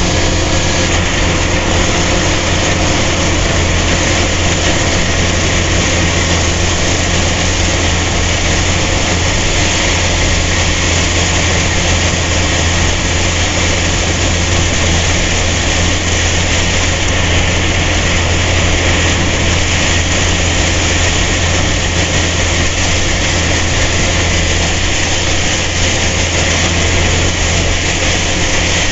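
Engine of a rice-harvesting machine running steadily at a constant speed: a strong low hum under an even mechanical rush.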